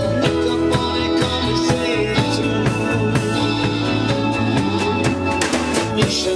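A rock band playing, with the drum kit's regular hits and cymbals over sustained held chords and bass.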